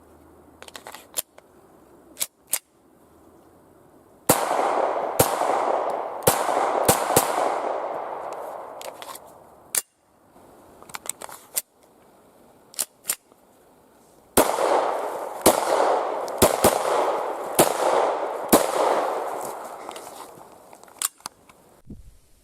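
Umarex Glock 17 Gen5 blank pistol firing 9 mm P.A.K. blank cartridges in two strings of shots, the reports trailing off in a long echo. Small clicks come between the strings.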